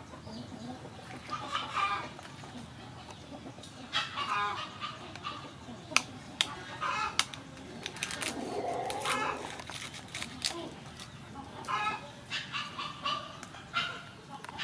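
Chickens clucking in short repeated calls, with a longer, lower call about eight seconds in. A few sharp clicks come in between.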